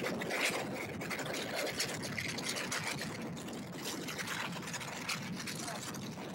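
Steady rushing hiss of a sled travelling over snow and ice, with faint scattered ticks.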